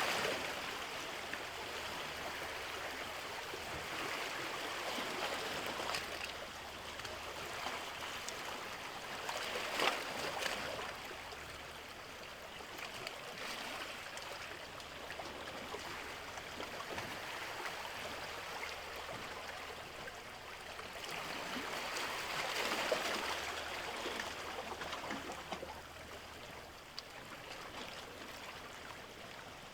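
Sea water washing and rushing, swelling and easing in slow, irregular surges as small waves come in.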